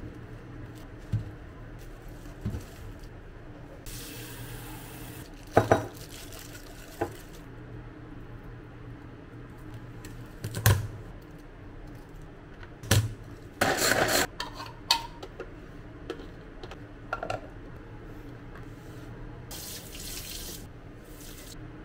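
Kitchen food-prep sounds: scattered knocks and taps as garlic cloves are handled and cut with a knife on a cutting board, with a quick cluster of sharper knocks about two-thirds of the way through. Two short hissing stretches come, one early on and one near the end.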